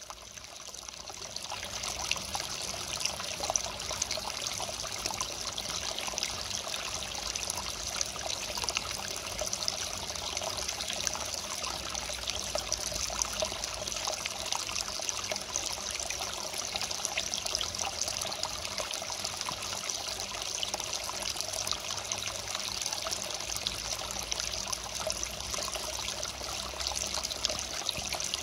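Water steadily splashing and trickling as it spills into a garden fish pond. It rises over the first couple of seconds, then holds steady.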